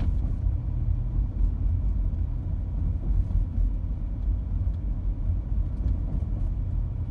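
Steady low rumble of a car's engine and tyres heard from inside the cabin while driving at an even speed.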